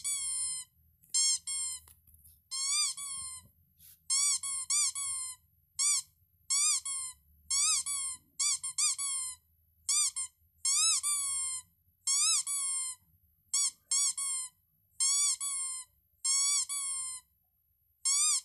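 Rubber squeaky dog toy squeezed over and over, giving short high-pitched squeaks at an uneven pace, each rising then falling in pitch.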